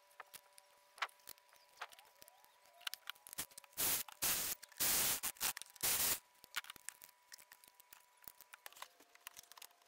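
Milwaukee M12 cordless ratchet running in three short bursts from about four to six seconds in, driving down the ignition coil hold-down bolts. Light clicks and taps of the coils and tools being handled come before and after.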